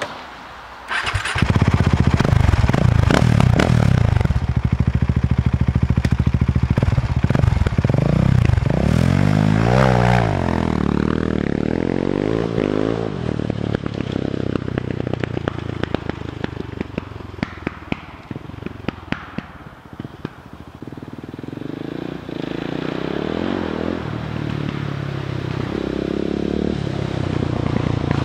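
Husqvarna 701 supermoto's big single-cylinder engine comes in hard about a second in and revs high, its pitch sweeping up and down. As the revs drop it gives a long string of sharp exhaust pops (backfire), then runs on lower and unevenly with more scattered pops.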